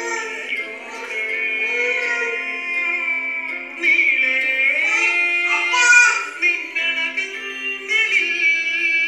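Song music: a high voice sings long, gliding notes over a steady low drone.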